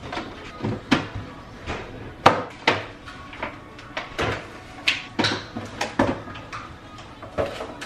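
Plastic food containers being taken from a refrigerator and set down on a granite countertop: a string of irregular knocks and clatters.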